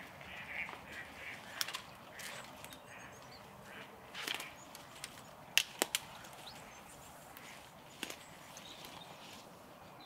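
Footsteps through dry leaf litter and fallen sticks, with several sharp twig snaps underfoot, the loudest a quick pair a little past the middle.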